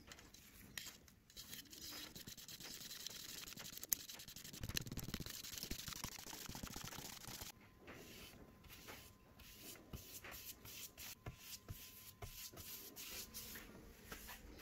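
Bristle paintbrush scratching and swishing over a flat engraved wooden board as wood stain is brushed on. The brushing hiss is densest in the first half, then gives way to scattered light clicks and taps.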